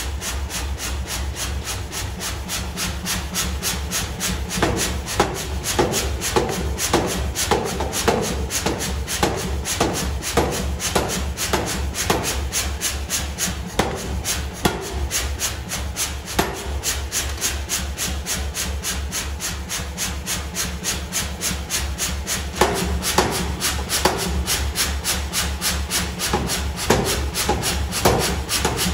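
Power hammer running with a fast, even rhythm of knocks, its ram striking red-hot steel on the bottom die as an axe blank is forged. Heavier blows come in runs a few seconds in and again near the end.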